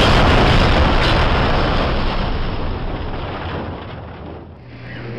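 Bomb explosion sound effect: the blast's loud rumble fading away steadily over about four seconds, giving way near the end to a quieter room with a low hum.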